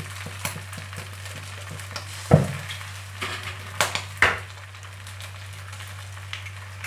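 Wide rice noodles, squid and chicken sizzling in a hot wok as two eggs are cracked in, with several sharp knocks on the pan, the loudest about two seconds in. A steady low hum runs underneath.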